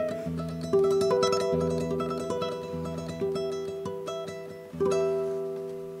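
Solo classical guitar, played fingerstyle: plucked notes and chords ringing out and decaying, with a chord struck about five seconds in and left to fade away near the end.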